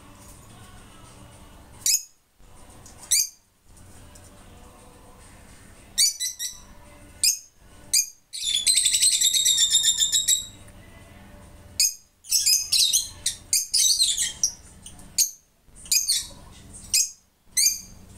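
Rosy-faced lovebirds squeaking: short, shrill chirps at irregular intervals, a two-second run of rapid chattering notes about eight seconds in, and a flurry of squeaks from about twelve to fifteen seconds.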